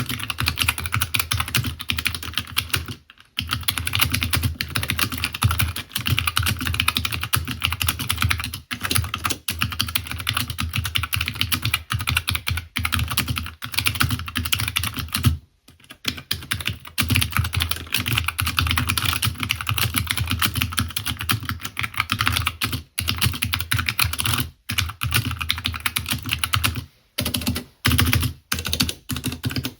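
Continuous fast typing on a custom 60% mechanical keyboard with Hi-Tek 725 tactile switches (SI grey) in an O-ring-mounted polycarbonate case, with short pauses at about 3 and 15 seconds and a few near the end.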